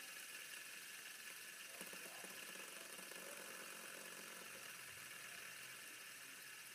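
Faint steady whir of a fidget spinner turning freely on its bearing on a countertop, under a low hiss. A faint low hum joins about two seconds in.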